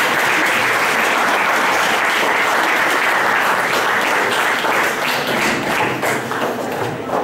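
Audience applauding, a dense steady clapping that thins out over the last couple of seconds into separate claps.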